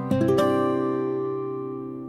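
Background music on acoustic guitar: a final chord strummed in the first half-second rings on and slowly fades.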